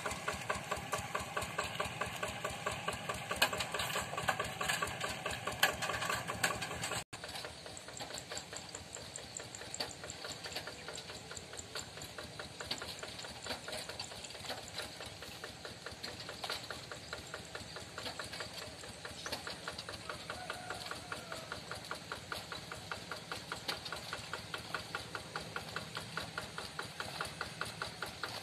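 Single-cylinder diesel engine of a Yanmar Bromo Pro hand tractor running at a steady idle with an even, rapid firing beat. The sound breaks off for a moment about seven seconds in, then goes on a little quieter.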